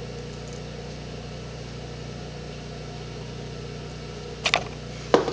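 Steady low electrical hum of a 150-watt high-pressure sodium floodlight and its ballast, running while the lamp warms up. A few short knocks near the end.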